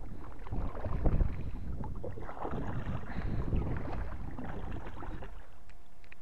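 Paddle strokes splashing and sloshing in the water as a small kayak is paddled along, with one sharper splash about a second in. The splashing dies away about five and a half seconds in.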